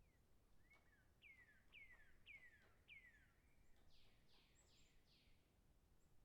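A bird calling faintly: a run of five falling whistled notes about half a second apart, then four higher, quicker falling notes.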